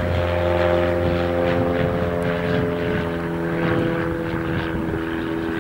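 Zodiac 601XL ultralight's ULPower UL260i engine and propeller droning steadily as the plane flies overhead.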